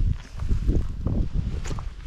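Low, irregular rumble on the microphone, with a couple of faint clicks near the end.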